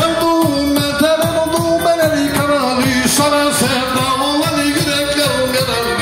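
Live Black Sea folk dance music: a kemençe playing a wavering melody over keyboard accompaniment and a steady drum beat.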